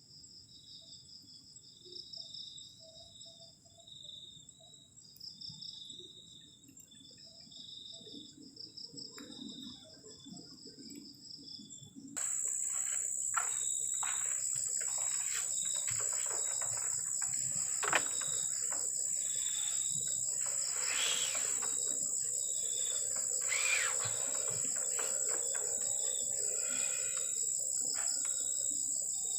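Crickets and other night insects calling: a steady high trill with pulsing chirps under it. About twelve seconds in the sound jumps suddenly louder, the trill grows stronger, and scattered clicks and knocks join it.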